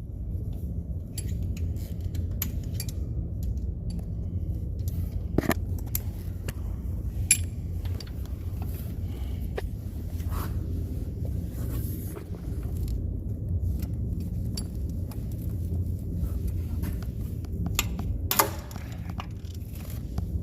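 Metal hand tools clinking and knocking irregularly against the starter bolts of a 2001 Ford F250's 5.4 V8 while a tight bolt is worked loose. The knocks are sharper about five seconds in and near the end, over a steady low hum.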